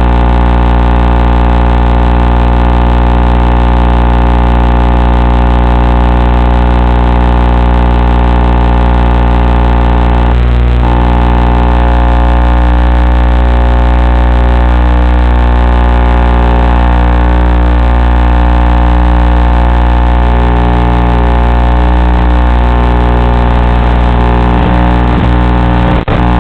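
Steady, loud drone of a small FPV aircraft's electric motors running under constant power, holding one pitch with many overtones. There is a brief change about ten seconds in and a few short dropouts near the end.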